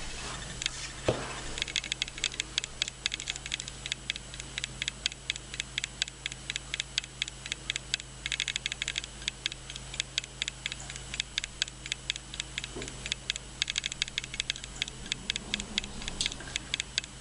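Rapid, irregular ticking, many sharp clicks a second, over a steady low hum.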